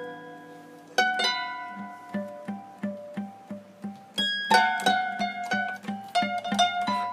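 Instrumental experimental electronic music: a run of short notes that die away quickly, over a regular low pulse. A louder chord comes in about a second in and again about four and a half seconds in.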